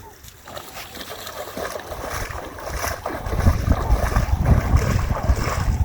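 Wind buffeting the microphone: a hissing haze with low rumbling gusts that grow louder about halfway through.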